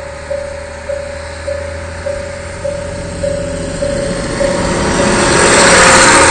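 A station foot-crossing alarm sounds a repeating electronic tone, a little under two pulses a second. Over it a diesel railcar's engine and wheels grow louder, reaching their loudest as the railcar passes close near the end.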